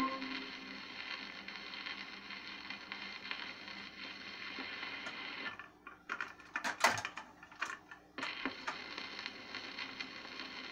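Steady hiss of a 78 rpm shellac record's surface noise through an Arvin portable record player's speaker. From about six to eight seconds in this gives way to a run of sharp mechanical clicks and clunks from the changer mechanism, then the surface hiss resumes.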